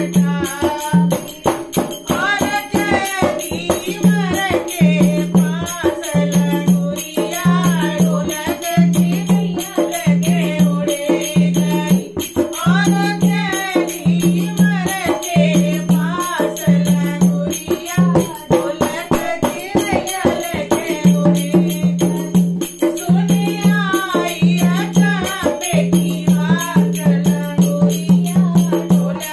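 A woman singing a languriya, a folk devotional song, to her own dholak, whose hand-struck strokes keep a steady dance rhythm under the voice.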